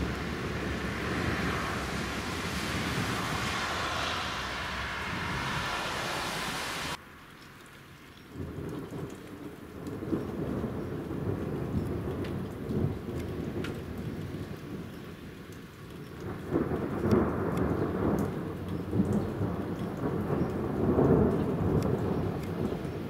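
Steady hiss of rain that cuts off abruptly about seven seconds in. Then low, rolling thunder rumbles, swelling louder in the last third, with scattered raindrop ticks.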